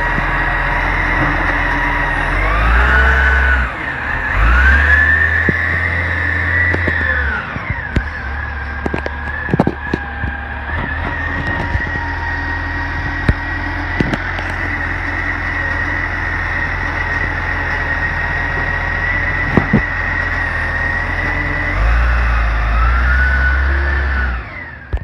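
Dennis Eagle side-loader garbage truck running at the kerb with a steady high whine, its engine revving up in spells while the automated bin arm lifts, tips and lowers a wheelie bin. Sharp knocks of the bin and arm come through in the middle, and the sound cuts off suddenly at the end.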